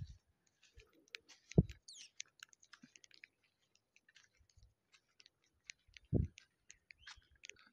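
Faint, irregular clicks and ticks, with two soft low thumps, one about a second and a half in and one about six seconds in.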